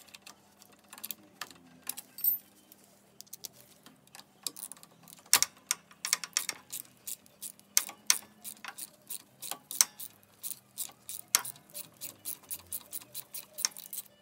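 Ratchet wrench clicking in quick, uneven runs as it loosens the clamp bolt of a moped's gear-shift pedal.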